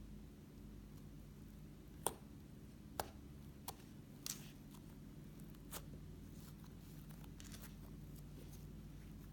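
Slime being squeezed and worked by hand, giving about five sharp clicks and pops over a couple of seconds, then fainter crackling, over a steady low hum.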